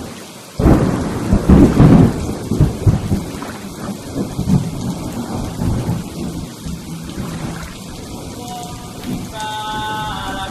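A thunderclap about half a second in, rolling and fading over several seconds, over steady rain. A few held musical tones come in near the end.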